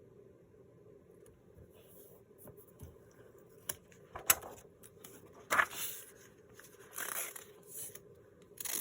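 Sheets of paper and book pages being handled and folded: rustling, sliding swishes and a few sharp taps, starting about two seconds in, over a faint steady hum.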